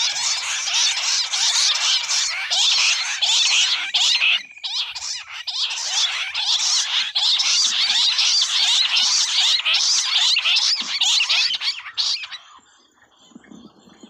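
Bush quail calling in chorus: many rapid, overlapping calls from several birds at once, loud and unbroken except for a short pause, then cutting off suddenly about twelve seconds in.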